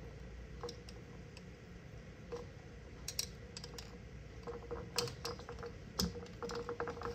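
Glass straw stirring strawberry lemonade in a glass tumbler, clinking lightly against the glass in a run of small scattered clicks that come thicker over the last couple of seconds.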